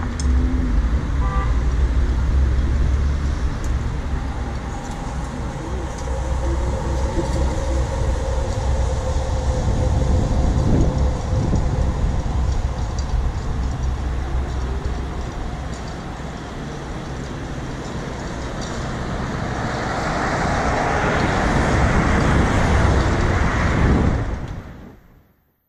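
Road traffic at a city intersection: a steady low rumble of engines and tyres, swelling for a few seconds near the end as cross traffic passes, then fading out.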